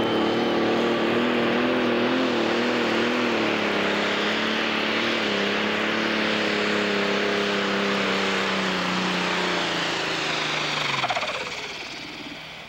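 Pro stock pulling tractor's turbocharged diesel engine running flat out under load as it drags the weight sled, a steady engine note with a high hiss and whine over it. About eleven seconds in the note sags and cuts off, and the sound falls away as the pull ends.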